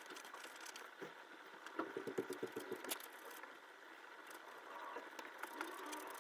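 Faint scratching of a pencil shading on drawing paper. A quick run of short back-and-forth strokes comes about two seconds in.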